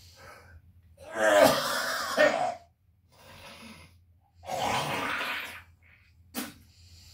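A man retching hard over a plastic bucket: two long, loud heaves, one about a second in and one in the middle, then a short one near the end.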